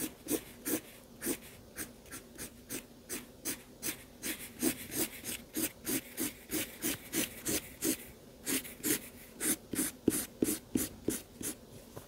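Felt-tip marker scribbling on drawing-pad paper in quick back-and-forth colouring strokes, about three a second.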